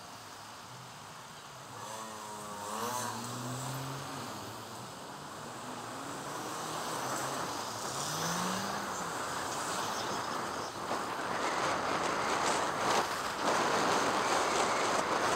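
Passing motor traffic in a city street: vehicle engines rising in pitch as they pull away, then a louder rushing noise building over the last few seconds.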